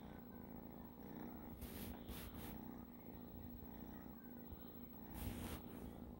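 Black-and-white kitten purring steadily, close up. A few brief noisy rustles about two seconds in and again near the end.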